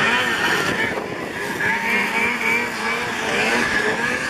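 Several snowmobile engines racing at high revs, their overlapping pitches rising and falling as the throttles open and close.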